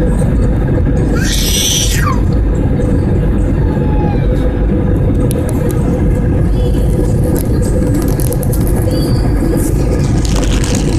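Steady loud rumble of an IndiGo airliner's jet engines and rushing air during the landing, with a constant hum running through it. A short high squeal-like sound comes about a second and a half in.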